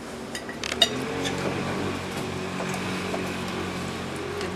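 A few sharp clinks of dishes and cutlery, then, from about a second in, a steady low hum of several held tones that runs almost to the end.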